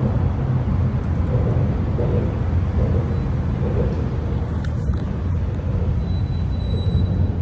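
Steady low vehicle rumble, with a faint thin high tone for about a second near the end.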